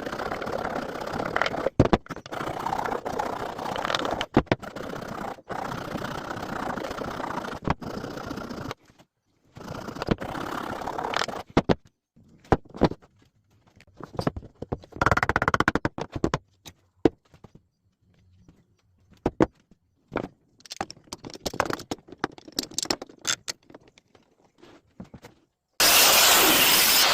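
Choppy, edited woodworking noise: scraping and knocking of wood and tools in short fragments, then near the end a loud circular saw cut that starts abruptly.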